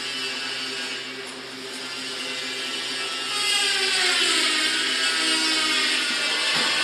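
Double-wire fully automatic chain link fence making machine running, a steady motor hum with mechanical whirring. A little past three seconds in it gets louder, and a whine falls in pitch over the next couple of seconds.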